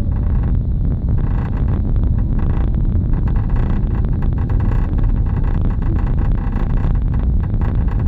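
Ford Fiesta in motion: a steady, loud low rumble with irregular rattly flickers above it. This is the abnormal noise from the back of the car, whose cause the owner does not know.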